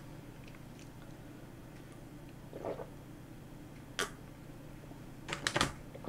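Soft sips and swallows of water from a mug, with a sharp click about four seconds in and a few small clicks near the end, over a faint steady low hum.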